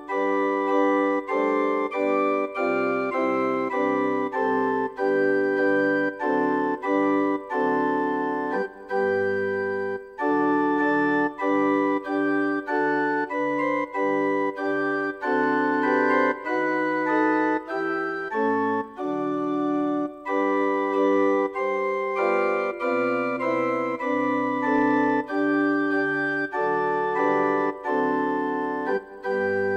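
Organ playing an instrumental postlude in held chords, the notes moving every half second to a second, with short breaks between phrases.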